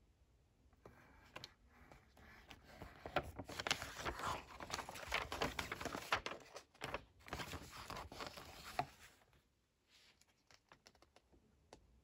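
Paper rustling as a book page is handled and turned, dense and crackly for several seconds. After it stops suddenly there are a few light clicks near the end.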